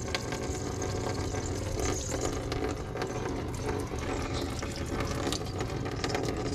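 A thin stream of water-laden gear oil running from the drain hole of a Yamaha F350 outboard's lower unit and splashing steadily into a drain pan of fluid. The gearcase is full of water, which the owner puts down to a failed seal.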